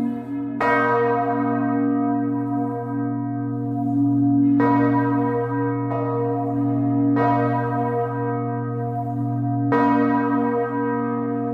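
A large church bell tolling slowly, struck four times a few seconds apart, each strike ringing out over a deep hum that carries on between strikes.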